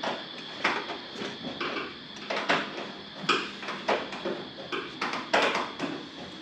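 Irregular handling noises: short scrapes and light knocks, about one or two a second, from hands working at a car's sheet-metal fender.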